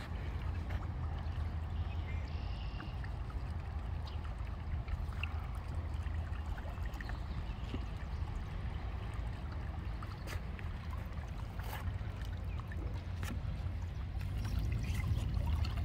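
Shallow creek water running and splashing over a steady low rumble, with a few sharp knocks as a tripod is dragged along the creek bed to pull out a piece of pottery.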